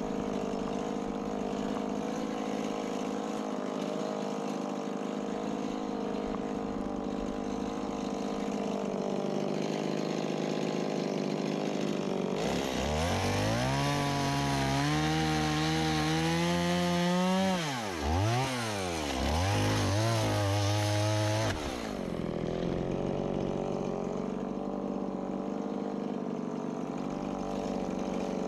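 Stihl MS170 two-stroke chainsaw idling, then throttled up and cutting wood for about ten seconds from roughly 12 s in. Its pitch rises and twice drops sharply under the load before it falls back to idle.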